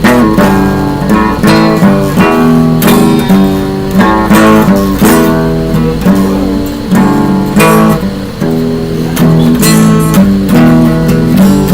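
Acoustic guitar playing a metal song, picked notes moving through a chord progression with sharp strummed chords every second or two.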